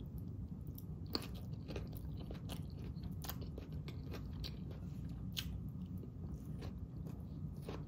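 Close-up chewing of a mouthful of raw salad: romaine lettuce, red cabbage and raw vegetables. Quiet, irregular crunches with scattered sharp little clicks.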